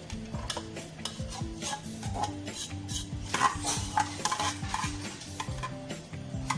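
Metal spoon stirring and scraping cooked rice in a stainless steel pot, with clicks of the spoon against the pot, thickest and loudest a little past halfway, over background music.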